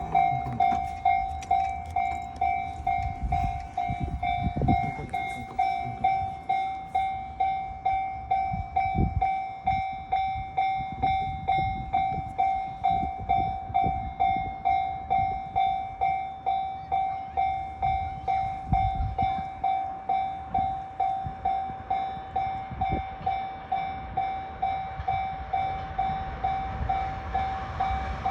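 Japanese railway level-crossing alarm ringing its repeating bell, about two strokes a second, each one fading quickly. Under it an electric train passes with a low rumble and thumps of wheels over rail joints.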